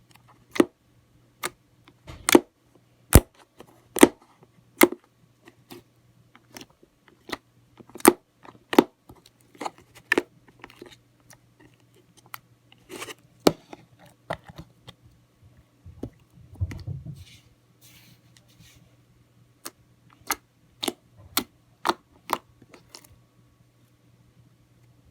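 Slime being worked by hand, giving off sharp, irregular clicks and pops a few times a second, with a softer low squelch about two-thirds of the way through.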